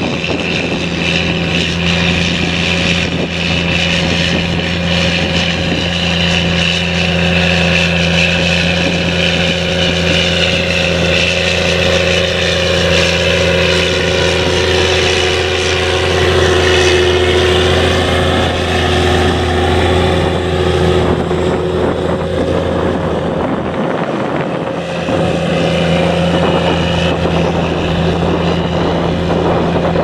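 Cat Challenger 765B tracked tractor's diesel engine running steadily under load while pulling a seven-furrow reversible plough, its low drone dipping briefly about three-quarters of the way through.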